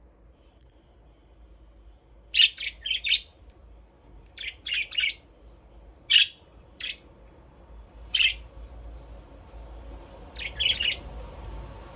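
Budgerigars giving short, sharp chirps in small clusters of two or three, with pauses of a second or two between them, over a faint low hum.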